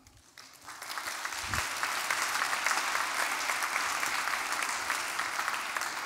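Audience applauding, the clapping starting about half a second in and quickly building to a steady, dense patter.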